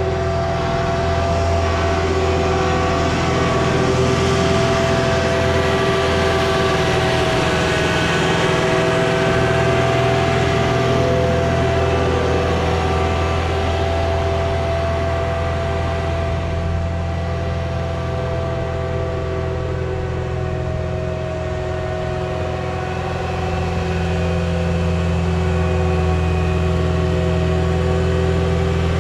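Caterpillar 259D skid steer's diesel engine running steadily, with small changes in engine speed.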